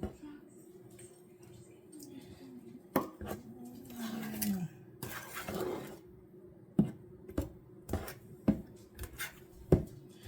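A spatula folding cake batter in a mixing bowl, knocking and scraping against the bowl's side. Sharp clacks come at fairly even intervals in the second half.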